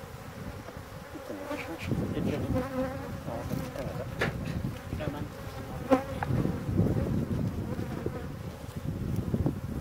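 Honeybees buzzing in a wavering hum around an open hive, dozens of them in flight. A few sharp knocks of a metal hive tool against the wooden frames cut through, the loudest about six seconds in.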